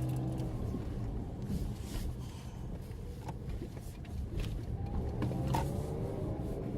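Car engine running as the car pulls away, its pitch rising about five seconds in as it speeds up.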